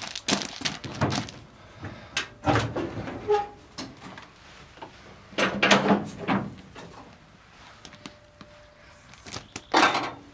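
Metal clunks and rattles of a Series Land Rover's aluminium bonnet being unlatched, lifted open and propped, in about four short bursts with quieter gaps between them.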